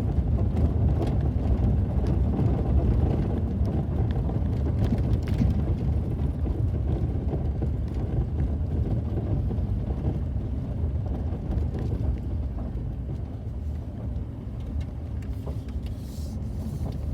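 Car driving along a road: a steady low rumble of engine and road noise, easing off slightly toward the end.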